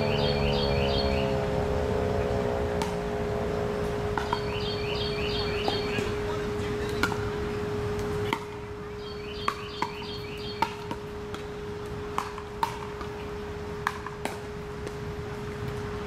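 Federal Signal 2001-SRNB siren winding down after its test, its falling pitch dying away in the first second or so. A steady tone lingers after it, a bird repeats a short chirping phrase every four to five seconds, and sharp clicks come now and then.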